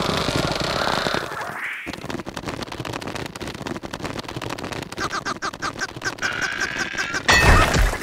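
Cartoon larva's squawking, duck-like gibberish voice, with a stretch of fast rattling in the middle. It ends in a loud, low crash near the end.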